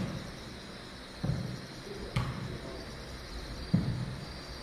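Jokgu ball being kicked and bouncing on the court: three dull thuds, the second about a second after the first and the third a second and a half later.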